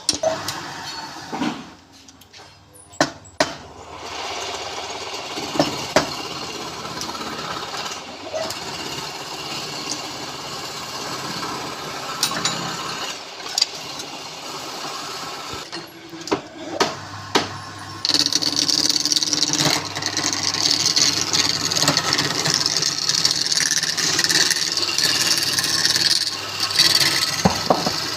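Woodturning lathe running, with a few sharp knocks in the first few seconds. About 18 seconds in, a turning tool bites into the spinning wood and a louder, steady scraping hiss takes over.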